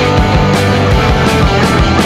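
Rock music with distorted guitars and a steady drum beat.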